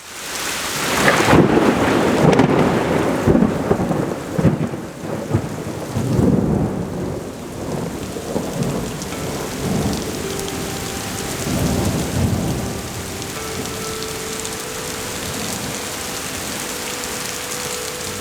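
Thunder rumbling over steady heavy rain. The thunder rolls for several seconds near the start and rumbles again about two-thirds of the way through, then the rain hiss carries on alone.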